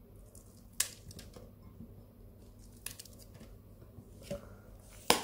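Fresh chillies being snapped into pieces by hand and dropped into a plastic blender jar: a few sharp snaps and light clicks, the loudest near the end.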